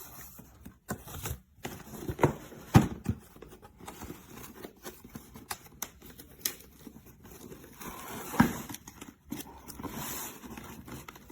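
Cardboard box and packaging being handled during unboxing: scattered knocks, scrapes and crinkling, with sharper knocks about three seconds in and just past eight seconds.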